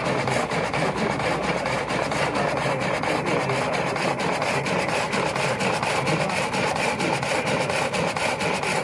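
Sawmill cutting lengthwise through a log, its blade belt-driven by an old stationary engine with large flywheels. The rasp of the saw in the wood mixes with the engine's rapid, regular beat.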